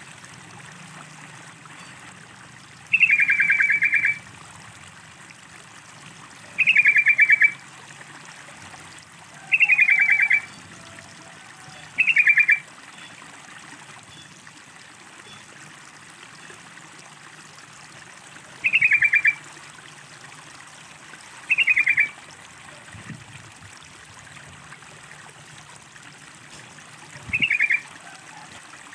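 Yellow-vented bulbul (trucukan) singing seven short phrases of rapid notes, each under a second long and spaced a few seconds apart, over a steady trickle of running water.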